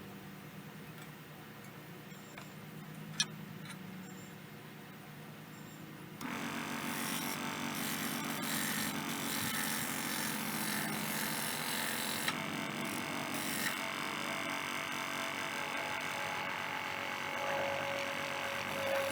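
Harbor Freight 16-inch scroll saw running, at first with only a low steady hum and one click. About six seconds in, a louder, steady rasping noise sets in, which is the blade cutting through the wood of the sign.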